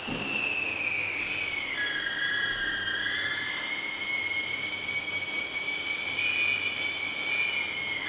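Eerie whistling of air through the gaps of an underground railway station's waiting room: several high whistles sound at once, slide down in pitch about a second in, then hold steady.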